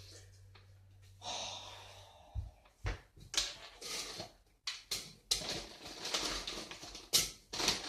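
Kitchen handling noises: a string of irregular knocks, clatters and short rustles of cookware and packaging, after a low steady hum and a brief hiss in the first two seconds.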